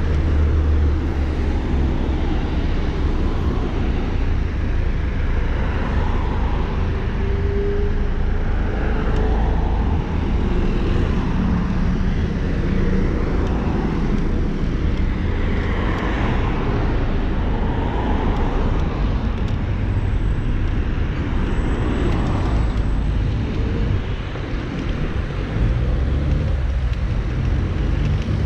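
Steady wind and road noise from riding a Xiaomi Mi Pro 2 electric scooter, a deep ragged rumble throughout. Cars pass now and then, their sound swelling and fading.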